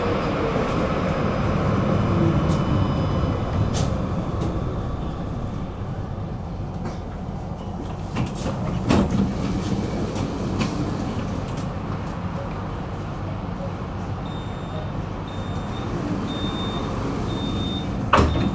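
Tram running on its rails, a steady low rumble with scattered sharp clicks from the wheels and car body. Near the end comes a row of five short, evenly spaced electronic beeps, then two loud knocks as the sliding doors move.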